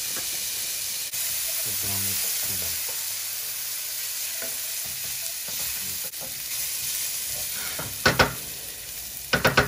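Minced garlic sizzling in hot oil in a stainless steel pan as it is stirred with a spoon. Near the end there are a few sharp knocks of the spoon against the pan.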